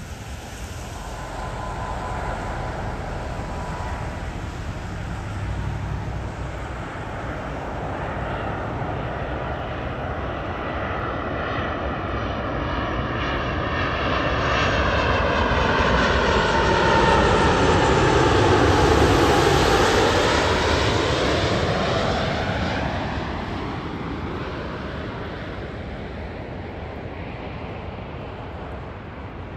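Engines of an airliner landing on the runway, swelling to a peak about two-thirds of the way through and then fading as it passes. The sound sweeps in pitch as the aircraft goes by.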